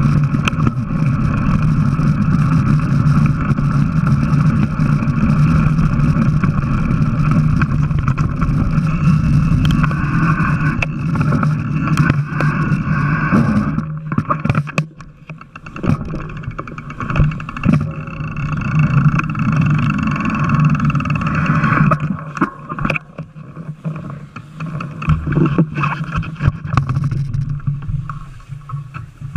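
Mountain bike riding noise on an action camera: a loud, steady rush of wind and tyres with a constant low hum. About halfway through it turns uneven and quieter as the bike slows to a stop, leaving scattered clicks and knocks from handling the bike.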